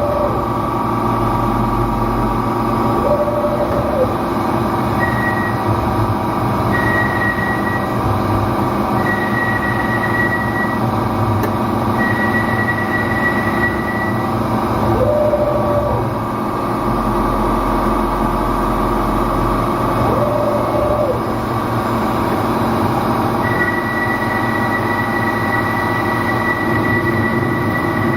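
CK6440 slant-bed CNC lathe running through a cycle: a steady machine hum, with a high whine that starts and stops several times and shorter lower tones coming in and out as the machine moves.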